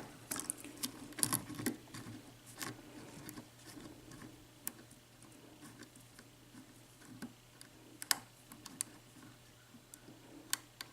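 Faint, irregular clicks and light scrapes of a lock pick and tension wrench working the pin stack of a Corbin Russwin interchangeable-core lock, feeling for the sixth pin to set.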